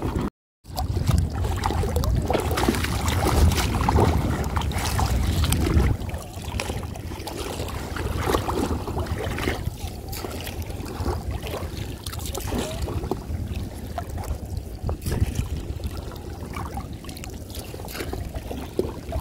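Boots wading through shallow seawater over a mudflat, water sloshing and splashing around the legs with each step, over a low rumble that is heavier for the first six seconds. The sound cuts out briefly just after the start.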